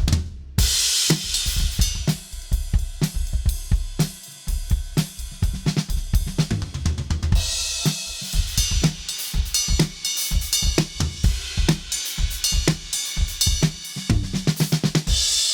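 Ludwig Vistalite drum kit played in a steady groove of kick, snare and hi-hat, with crash cymbals struck about half a second in, again around seven and a half seconds in, and near the end.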